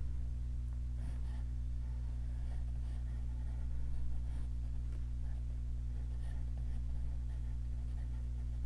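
Pencil scratching lightly on paper in short drawing strokes, over a steady low hum.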